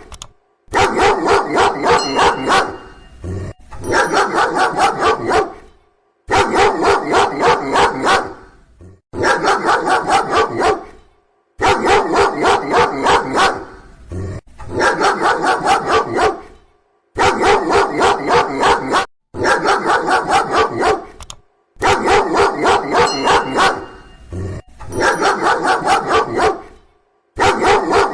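Dog barking loudly in rapid volleys of half a dozen or so barks each, with short pauses between volleys.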